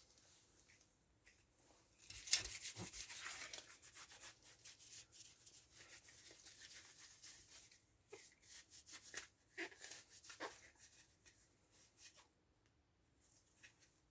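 Faint, irregular rubbing and scrubbing of a rag over chainsaw parts being cleaned, with a few light clicks of handling about eight to ten seconds in.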